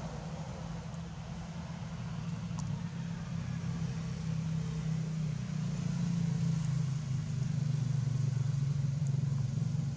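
A motor engine running steadily and growing gradually louder.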